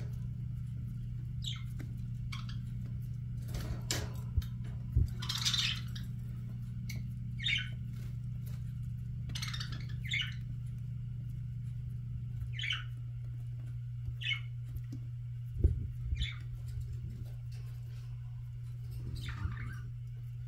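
Budgerigars giving short chirps every second or two over a steady low hum, with a couple of soft knocks.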